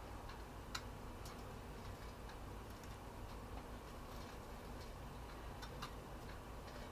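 Faint, scattered light clicks and taps over a low steady hum as small scotch eggs are picked by hand out of an open air fryer basket.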